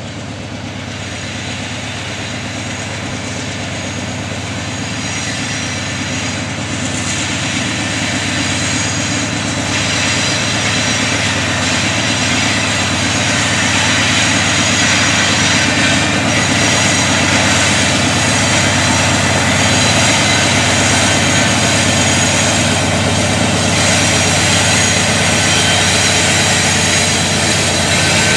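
Norfolk Southern freight train's lead diesel-electric locomotives approaching and passing, their engines running in a steady low drone. The sound grows louder over the first half and then holds steady as the units draw alongside.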